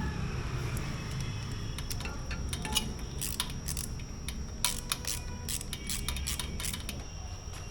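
Irregular metallic clicks and clinks of hand tools on exhaust fittings as the header-pipe joints are tightened. The clicks bunch together from about three seconds in, over a low steady rumble.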